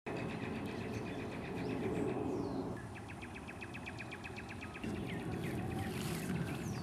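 Outdoor backyard ambience: birds chirping, with a rapid trill of short chirps at about ten a second and a few brief falling whistles, over a steady low background noise.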